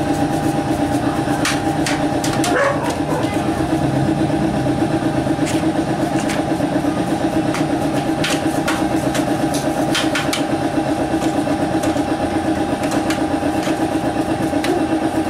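A motor or small engine runs steadily with a fast, even throb. Light clicks and scrapes come now and then as a paintbrush works over the parts inside a computer case.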